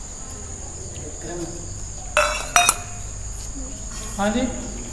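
Steady high-pitched insect drone throughout. Two sharp metallic clinks, like steel dishes knocking together, come a little past two seconds in, and a brief voice is heard near the end.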